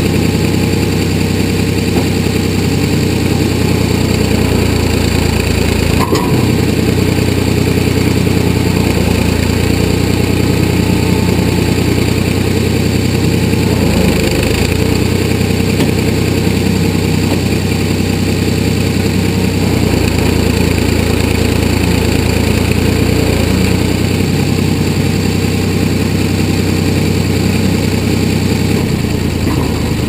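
1981 Ford 555 backhoe's engine running steadily from the operator's seat while the boom and ditching bucket dig. Its low note shifts a few times as the hydraulics take load.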